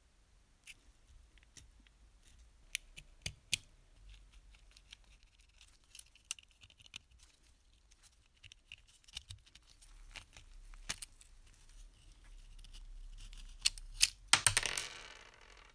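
Scattered light metallic clicks and clinks of small tin-plate toy parts and hand tools being handled, with a louder clattering jangle near the end.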